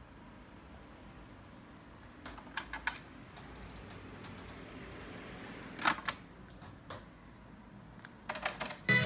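Plastic clicks of a Philips micro system's cassette deck being worked by hand: a few quick clicks, a single louder click about six seconds in, then another quick run of clicks as the tape compartment is opened, loaded, closed and its buttons pressed. Music starts playing right at the end.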